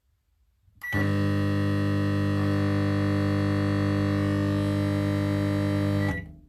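Kenwood K25MSS11 microwave oven running with a loud, steady hum for about five seconds, starting about a second in and cutting off shortly before the end, with a brief high tone as it starts and as it stops.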